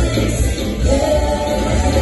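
A gospel worship song sung by a group of singers on microphones, in unison like a small choir, over a live band with heavy bass.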